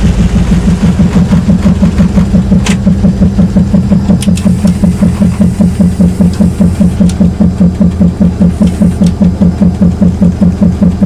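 EMD 567 two-stroke V16 diesel engine of a Nohab/GM Di3 locomotive running with a steady, pulsing beat, heard from inside the driver's cab. A few light clicks sound over it.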